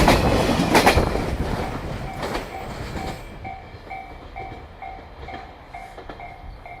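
Freight train's container wagons clattering over rail joints, a few loud clacks in the first two and a half seconds, then dying away as the train goes by. A level-crossing warning bell rings on, about two strokes a second.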